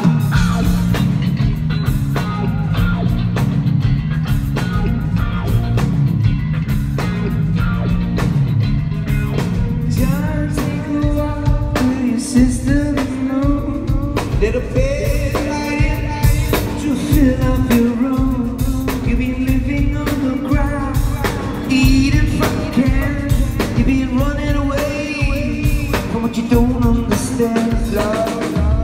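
Live rock band with electric guitar, bass, drums and keyboards playing over a steady bass groove; a male lead voice starts singing about ten seconds in.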